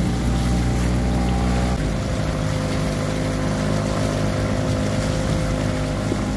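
Small boat's outboard motor running steadily under way, over the rush of water past the hull. The engine note shifts slightly about two seconds in.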